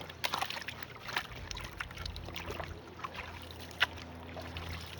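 Shallow stream water sloshing and splashing, with irregular small clicks and one sharp knock near the end, like rocks or a tool striking stone in the water.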